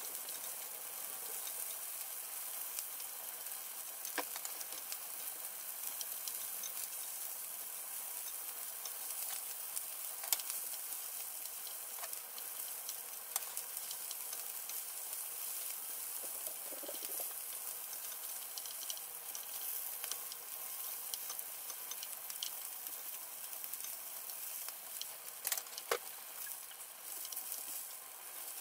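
Pieces of trout frying in oil in a skillet: a steady sizzle, with a few sharp light clicks as a wooden spatula turns the pieces and lifts them out of the pan.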